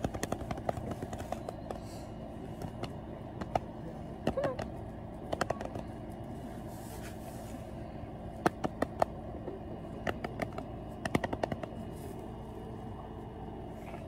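Sharp knocks and clicks right on the microphone, irregular and in small clusters of two or three, from a baby goat climbing about and bumping the phone.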